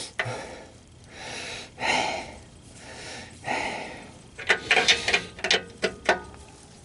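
Ratchet wrench working, with a few softer scraping strokes and then a quick run of sharp clicks about two-thirds of the way through.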